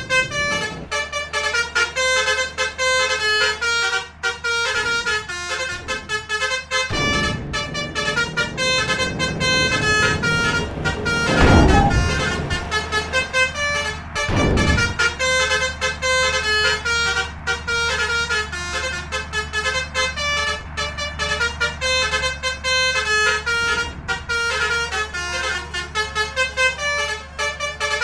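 Basuri 'telolet' musical vehicle horns playing a quick stepping melody over and over. A burst of engine and road noise swells through the middle and is loudest about twelve seconds in.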